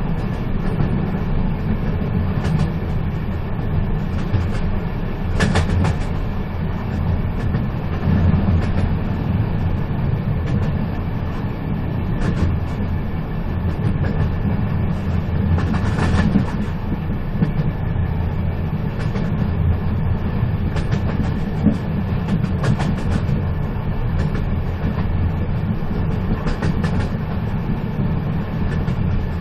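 A moving train running steadily, with a continuous low rumble and scattered sharp clicks and clacks every few seconds.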